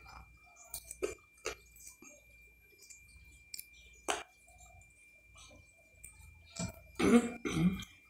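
A person eating with her hands, chewing rice, beans and pork rib: scattered wet mouth clicks and smacks. Near the end there is a short, louder voiced sound from her, about a second long, like a hum.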